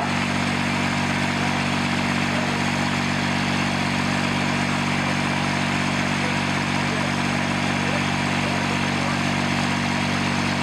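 An engine idling steadily at an unchanging speed, under an even hiss.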